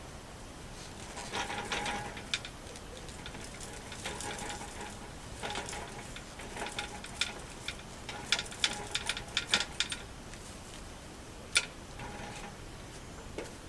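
Clicks, clanks and rattles of a hand cycle's metal parts being handled and worked apart, with a dense run of clicking about two thirds of the way in and one sharp click soon after.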